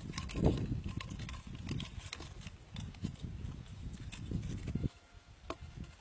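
Scattered light knocks, clicks and rustling as bamboo poles and metal wire are handled and fitted together.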